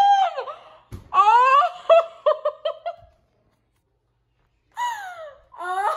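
A young woman shrieking and laughing at a high pitch: a rising cry that breaks into rapid laughter, about five laughs a second, then dead silence for about a second and a half, then a long falling wail and another rising cry near the end.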